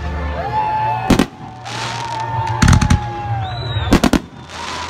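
Fireworks going off: comets launching and bursting with sharp bangs about a second in, near three seconds and twice near four seconds, with hissing between the bangs.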